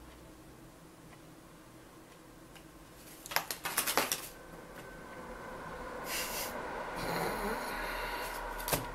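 A house of cards collapsing: about three seconds in, a quick clatter of cards falling and slapping onto the table, followed by a few seconds of softer noise and a single click near the end.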